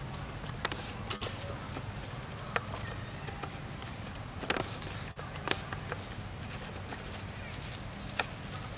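Macaques' footsteps in dry leaf litter: a few scattered sharp clicks and crackles over a steady low hum.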